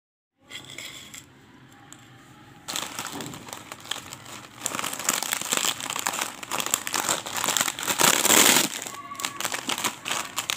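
Metallised foil Wah Ray snack packets crinkling and a plastic mesh net bag rustling as hands work a packet free of the netting. The crinkling sets in about three seconds in and is loudest about eight seconds in.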